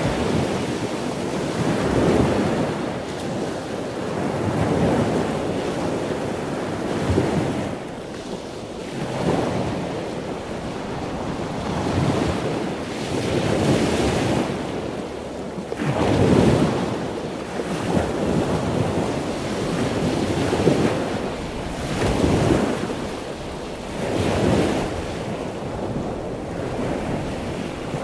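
Sea waves washing against the shore, swelling in surges every two to three seconds, with wind buffeting the microphone.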